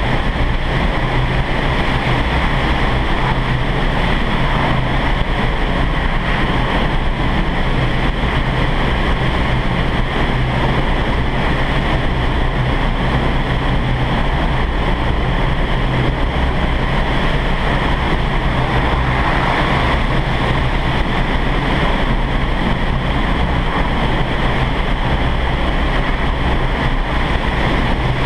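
Steady rushing of the high-speed air column in an indoor skydiving vertical wind tunnel, heard from inside the flight chamber with wind blasting the microphone, and a steady low hum underneath.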